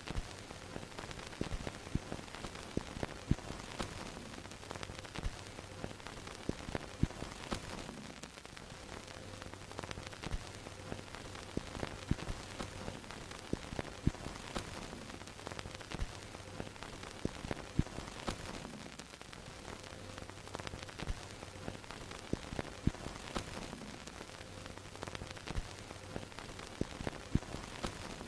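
Vintage film projector soundtrack: a steady hiss and low hum with irregular crackle and pops, like old film running through a projector. The hum drops out briefly a few times.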